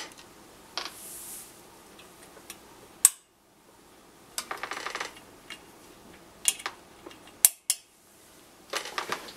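Sharp clicks and light clattering of small hard objects handled on a workbench, coming in scattered bunches, including lamp switches clicking as the work lights are turned off.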